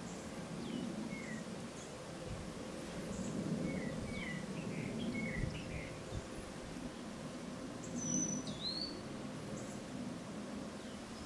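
Small birds chirping in short, scattered notes, with a louder sweeping call about eight seconds in, over a steady low background noise.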